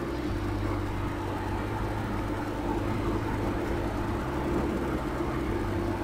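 A steady low mechanical hum with an even hiss, under the light scraping of a wooden spatula stirring eggs in a thick masala in a kadai.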